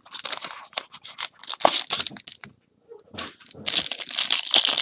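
Foil trading-card pack wrapper crackling and crinkling in the hands as it is torn open, with a brief pause about halfway, then dense steady crinkling and tearing near the end.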